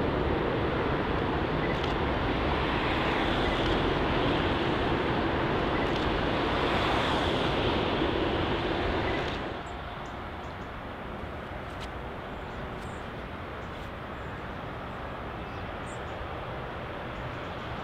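Boeing 777 freighter's GE90 jet engines on final approach, a steady jet rumble and whoosh with a faint falling tone as it moves away. About nine seconds in it cuts to the quieter, steady engine noise of a Boeing 767-300 approaching to land.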